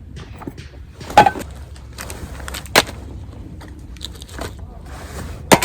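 Three sharp knocks or clicks, about a second, nearly three seconds and five and a half seconds in, with light rustling and handling noise between them over a low steady rumble.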